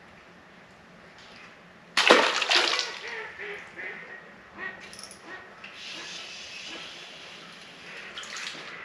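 A small crappie tossed back into the lake, hitting the water with a sudden splash about two seconds in, followed by softer, uneven noise.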